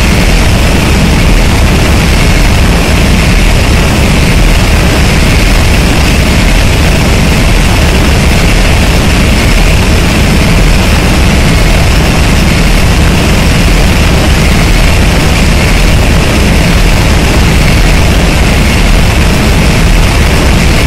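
Harsh noise wall: a loud, dense, unchanging wall of distorted static with a deep rumble underneath and a hissing band higher up, without rhythm or melody.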